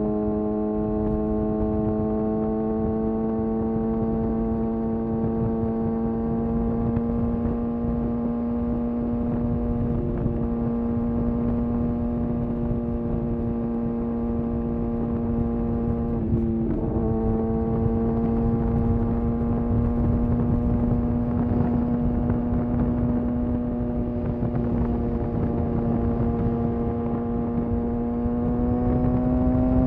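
Kawasaki ZX6R inline-four engine running at steady cruising revs, a single held tone with a brief wobble in pitch about halfway through. The pitch rises a little near the end as the throttle opens.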